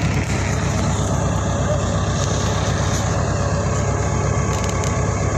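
Tractor engine running steadily with a low, even drone while it pulls a planter sowing maize.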